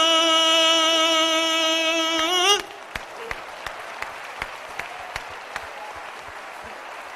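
A man's voice holds the drawn-out vowel of a sung cry of "papà" as one long steady note. It wavers at the end and stops suddenly about two and a half seconds in. Audience applause follows.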